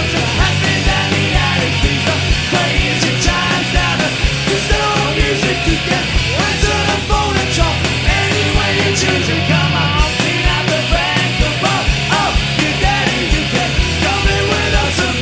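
Live indie rock band in full swing: loud distorted electric guitars, bass and a driving drum beat with a steady kick, and a lead vocal singing over it.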